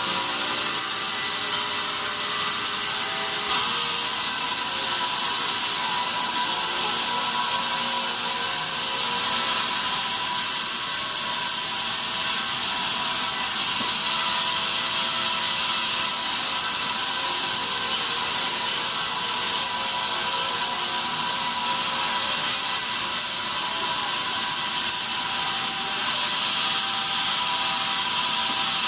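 Band sawmill running steadily while sawing pine, a constant hiss from the blade with a few steady whining tones from the machinery.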